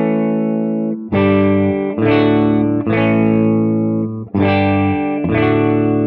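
Les Paul-style electric guitar strummed through a valve amplifier built on the brown-face Fender Bassman normal-channel circuit, set with a 25 µF cathode bypass capacitor on the first preamp stage, fixed-bias output and negative feedback on. About six chords, each let ring until the next is struck roughly a second later.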